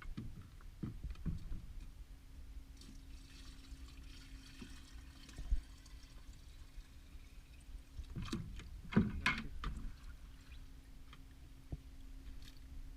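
Water sloshing and splashing as live bait shrimp are scooped from one bait bucket into another, with scattered knocks and a louder flurry of splashes about eight to nine and a half seconds in. A faint steady hum runs underneath from about a second and a half in.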